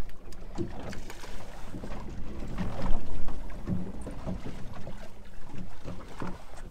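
Wind buffeting the microphone and water lapping against the hull of a boat drifting at sea, with scattered knocks from people moving about on the deck and a louder thump about three seconds in.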